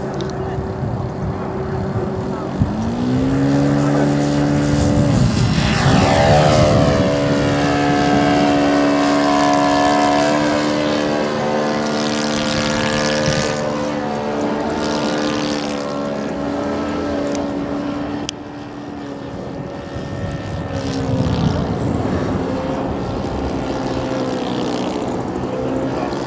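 Radio-controlled model aeroplanes' propeller motors droning, with several overlapping tones. The pitch climbs sharply about three and again about six seconds in as they throttle up, then holds steady in flight.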